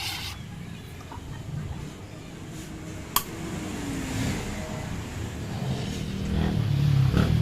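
Low, steady rumble of background vehicle noise, swelling near the end, with a few light clicks, the sharpest about three seconds in.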